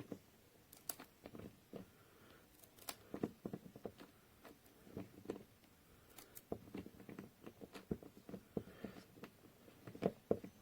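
Scattered light clicks and knocks at irregular intervals, the sound of small hard objects being picked up and set down.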